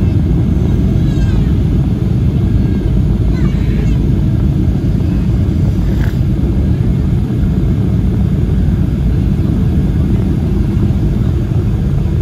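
Steady, deep cabin noise of a Boeing 737 in descent, heard from inside the cabin over the wing: the hum of the jet engines mixed with the rush of air past the fuselage.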